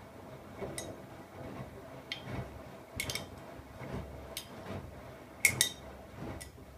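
Siemens iQ700 front-loading washing machine (WM16S793GB) tumbling a load in its drum during a Rapid 20 wash, low swishing swells with sharp clinks against the drum, the loudest a quick pair about five and a half seconds in.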